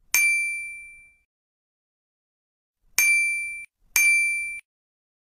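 Bell-like ding sound effect struck three times, the reminder chime of a subscribe-button and notification-bell animation. The first ding rings out and fades over about a second; the next two come about three and four seconds in and stop short.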